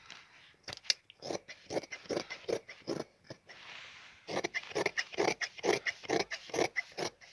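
Large tailor's shears snipping through checked trouser fabric, a steady run of short snips about three a second. A little past halfway there is a brief pause filled by a soft rustle of the cloth.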